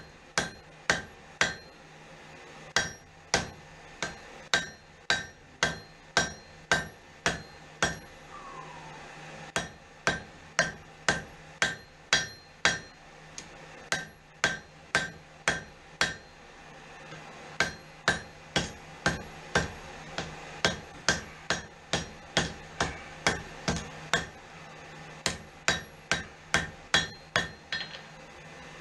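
Hand hammer striking hot steel on an anvil while forging a knife blade: sharp ringing blows at about two a second, in runs broken by short pauses, over a steady low hum.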